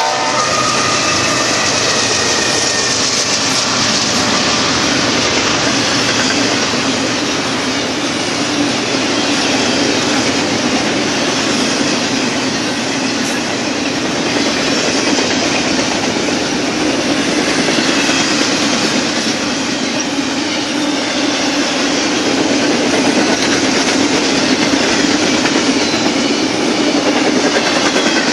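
BNSF double-stack container freight train passing close by at speed: the end of a locomotive horn blast cuts off right at the start, the lead diesel locomotives go by, then the well cars' wheels keep up a loud, steady rolling noise on the rails.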